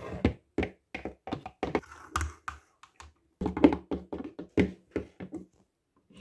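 Hard plastic toy horse figurines tapped and knocked along a laminate floor, hooves clacking in an irregular run of sharp taps with a short pause about halfway.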